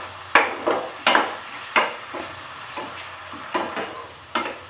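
Wooden spatula stirring marinated pork in a frying pan, scraping the pan about twice a second, over the steady sizzle of the pork frying in oil.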